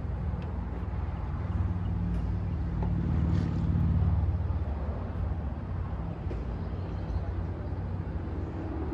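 A car engine running, its low hum building to a peak about four seconds in, then easing off.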